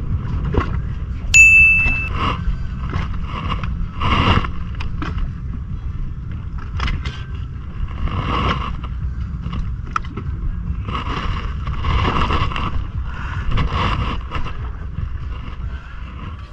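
Wind and water against a small fishing boat, a steady low rumble with recurring rushing surges. About a second and a half in, a single sharp, high ding rings briefly.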